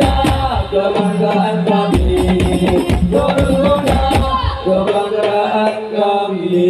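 Hadrah percussion ensemble playing: a large bass frame drum (bass drejeb) struck with mallets gives the deep thuds under frame drums and jingling tambourines, over a held melody line. The bass drum drops out for about a second, about two seconds in.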